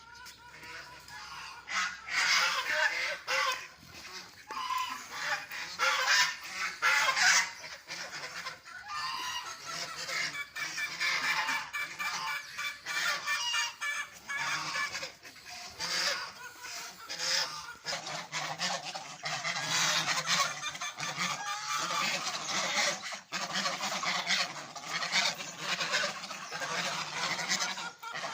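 A flock of pet birds calling noisily and without let-up, many voices overlapping: birds clamouring to be fed.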